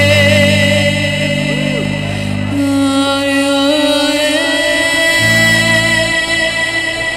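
Live band music: held chords that change every second or two, with a singing voice.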